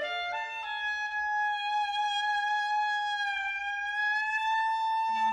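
Background music for a scene transition: a few notes stepping upward, then one long held high note that wavers slightly in pitch, with new lower notes coming in near the end.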